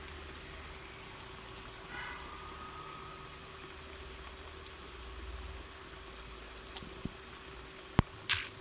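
Quiet outdoor background with a low steady rumble and a faint steady hum. There is a short chirp about two seconds in, and near the end a sharp click, the loudest sound, followed at once by a brief high squeak.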